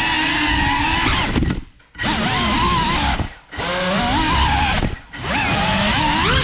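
GEPRC CineLog 35 cinewhoop drone's brushless motors and ducted propellers whining, the pitch rising and falling with throttle. The whine nearly drops out three times, about two, three and a half and five seconds in, as the throttle is chopped, and climbs back in pitch each time the throttle comes up.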